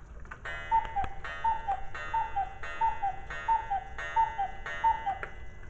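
Mechanical cuckoo clock striking the hour: its bellows pipes sound the two-note falling "cu-ckoo" seven times, about three calls every two seconds.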